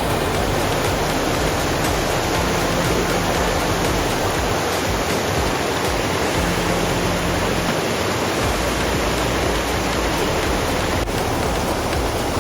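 Steady rushing water, like a fast creek or waterfall: an even, unbroken hiss with no rhythm.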